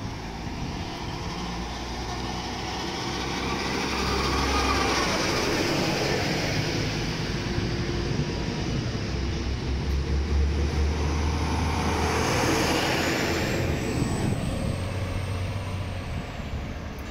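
DB class 633 diesel multiple unit pulling away and passing close by, its diesel engine running under load with the rumble of wheels on the rails. It grows louder about four seconds in, stays loud, then fades near the end.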